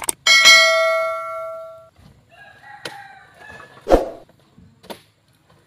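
A mouse click and a bright bell ding that rings out over about a second and a half, the sound effect of a subscribe-button animation. Then a faint wavering call in the background and a few knocks and heavy thuds, the loudest about four seconds in, as oil palm fruit bunches are thrown up onto the truck.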